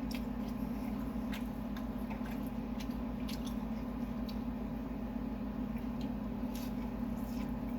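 Close mouth sounds of someone chewing food, with scattered small wet clicks, over a steady low hum.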